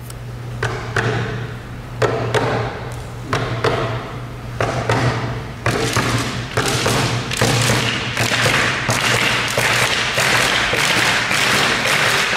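A group of performers making percussive thuds and taps, at first spaced out and then coming faster and closer together. From about two-thirds of the way in, a continuous noisy wash builds up and becomes the loudest sound, with a steady low hum under everything.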